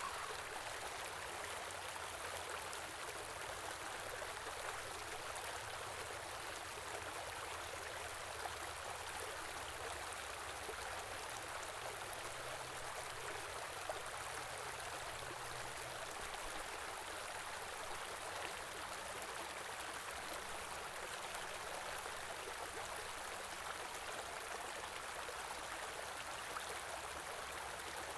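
Small stream flowing steadily over rocks, an even rushing and burbling of water.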